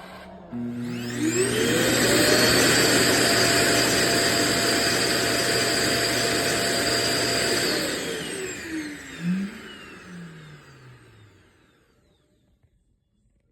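The Roomba j7+'s self-emptying base runs its suction motor. The motor spins up with a rising whine, runs loud and steady for about six seconds, then winds down with a falling whine and stops.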